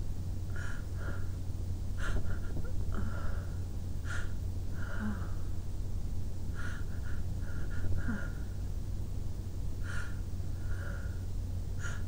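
A person with a cold sniffing and breathing hard through the nose, about a dozen short sniffs, some in quick pairs, while trying to bring on a sneeze. A steady low hum runs underneath.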